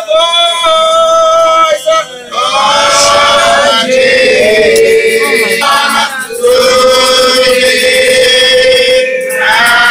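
A man's voice singing a slow hymn, drawing out long held notes.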